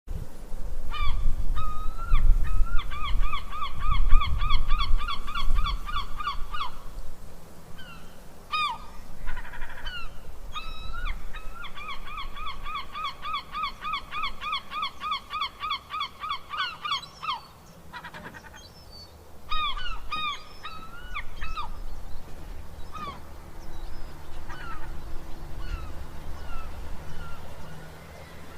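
Cranes calling: two long, fast runs of ringing calls, several a second, lasting about four and five seconds, with scattered single calls between them and fainter calls near the end. A low rumble sits under the first several seconds.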